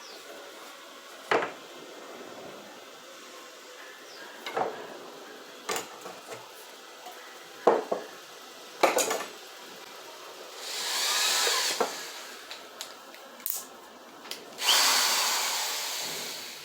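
Wooden pieces knocking sharply against a workbench several times, then two bursts of a handheld power tool, the second the longer and loudest, fading out near the end.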